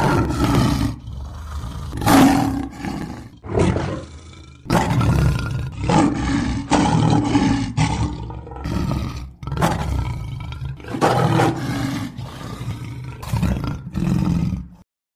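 Male lions roaring: a long series of deep, loud roars repeating about once a second, with short breaks between bouts.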